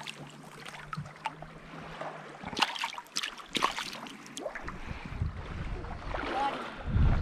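Shallow water splashing and sloshing as a person wades through it, with a few sharp splashes in the middle. Then wind buffeting the microphone, a low rumble that is loudest near the end.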